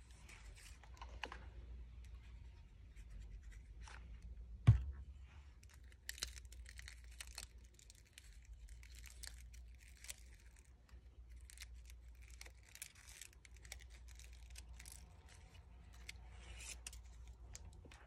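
Fringed paper strip being rolled tightly by hand, with soft rustling and crinkling of the paper and scattered small ticks. One sharp knock about five seconds in.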